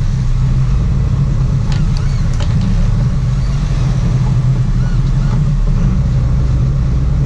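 Sport-fishing boat's inboard engines running steadily under way, a low even drone with the wash of the wake over it.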